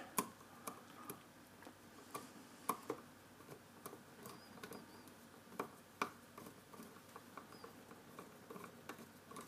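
Faint, irregular small clicks and scratches: fingers fitting a screw back into a 3D printer's extruder tension arm.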